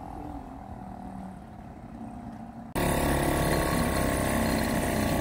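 Small outboard motor on an inflatable dinghy running steadily, faint and distant at first. About three seconds in it becomes suddenly much louder and closer, a dense steady engine drone.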